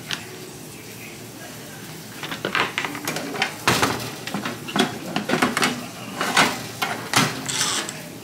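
Metal kitchenware clattering: a wire air-fryer basket and metal sheet pan of roasted potatoes knocked and scraped by a spoon and handled with an oven mitt. It begins with one click, then runs as a dense string of knocks from about two seconds in, with a scrape near the end.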